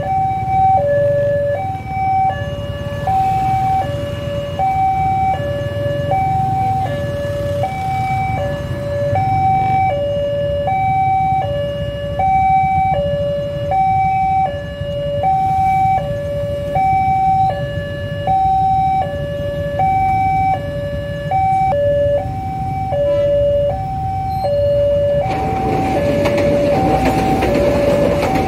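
Railway level-crossing warning alarm sounding its two-tone chime, high and low notes alternating about twice a second, a sign that a train is approaching. About 25 s in, the noise of the train running over the crossing rises under the alarm.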